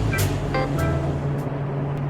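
Background music with light percussive strikes that fades out about one and a half seconds in, leaving a steady low hum underneath.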